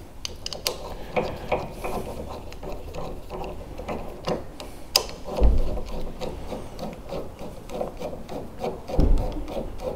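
Hex key turning the clamping screw of a Matador Bull-Lock 2.0 tow-ball lock: a run of short metal scraping clicks, settling to about three a second, as the lock is tightened onto the hitch. Two dull thumps about halfway and near the end.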